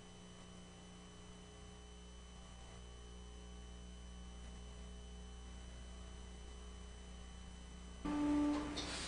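Faint, steady electrical mains hum. About eight seconds in, a short musical tone sounds over it.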